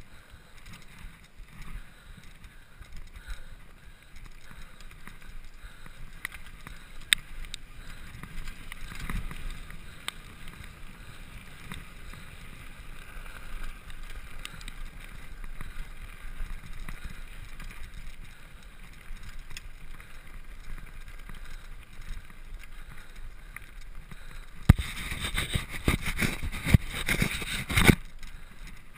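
Mountain bike descending a gravel and dirt trail: tyres crunching over stones, with the chain and frame rattling and knocking over bumps. Near the end, about three seconds of louder, dense clattering and knocks over rougher ground.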